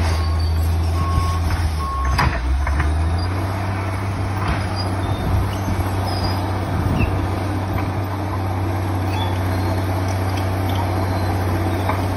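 Komatsu D65PX crawler dozer's diesel engine running steadily, its reversing alarm beeping a few times in the first two seconds. Occasional short knocks and clanks come through over the engine.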